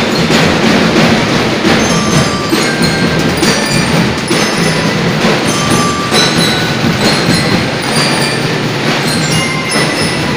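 Drum and lyre band playing: bell lyres ring out short bright notes of a melody over a dense, steady beat of marching drums.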